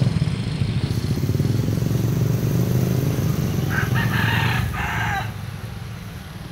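A rooster crows once about four seconds in, a call of about a second and a half that falls in pitch at the end. Under it runs the low rumble of passing motorcycle engines, fading out near the end.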